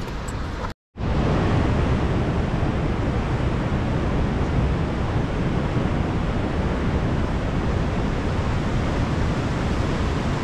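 Steady roar of a waterfall and rushing water in a narrow rocky gorge, briefly cut off about a second in and then running on unchanged.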